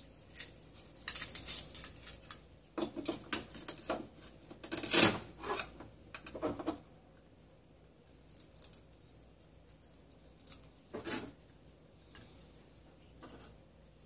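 Hard plastic toy food handled by hand: clicks and knocks of plastic pieces with short rasps as velcro-joined halves of toy grapes are pulled apart, loudest about five seconds in. The second half holds only a few scattered taps.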